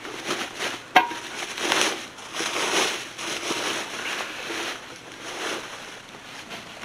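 Crinkling and rustling of plastic packaging as silicone pot-handle covers are handled, with a sharp click about a second in.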